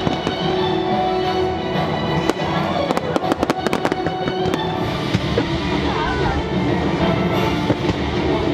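Fireworks going off in a lagoon show. A dense run of quick sharp cracks comes about two to four seconds in, over the show's orchestral music soundtrack playing throughout.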